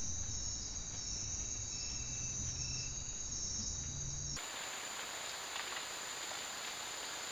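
Jungle insects trilling steadily at several high pitches over a low hum. About four seconds in the sound cuts abruptly to a hissier forest background with one steady high insect whine.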